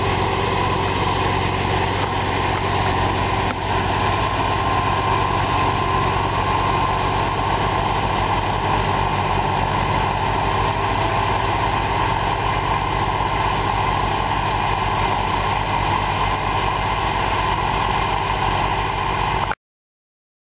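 Diesel engines of Hattat farm tractors running steadily as they pull tillage implements through the soil. The sound cuts off suddenly near the end.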